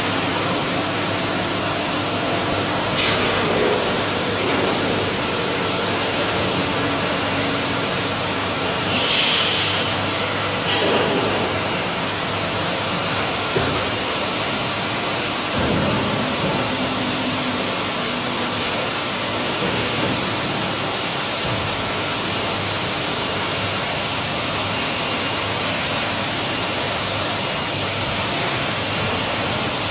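Steady machine-shop noise: a continuous rushing hum of running machinery with a few brief knocks and clanks of metal.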